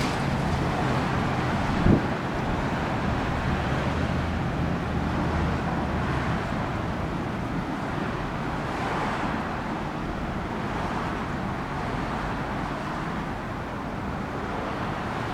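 Steady road traffic noise with some wind on the microphone, and a single sharp knock about two seconds in.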